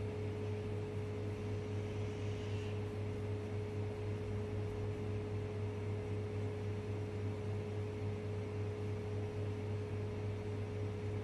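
Steady low hum of a running appliance motor, with a faint steady higher tone over it.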